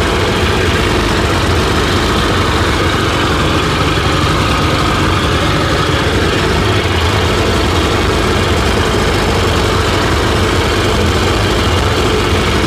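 Sea-Doo GTX DI's two-stroke twin engine running steadily at idle, heard from right above the open engine compartment.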